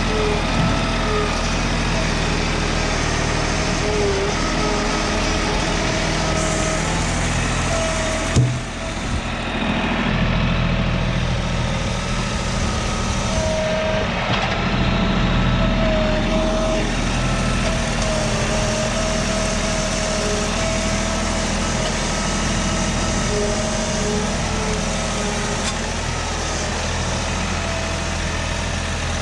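An engine running steadily, with one sharp knock about eight seconds in.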